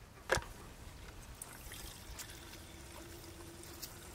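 Gasoline poured from a plastic gas can into a chainsaw's fuel tank: a sharp click about a third of a second in, then a faint steady trickle, with a faint low tone joining about halfway through.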